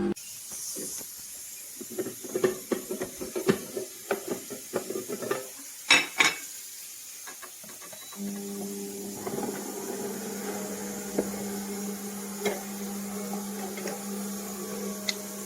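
A cold-press slow juicer's motor hum stops. Plastic parts click and knock as they are handled, with two sharp clicks about six seconds in. The steady motor hum starts again about eight seconds in.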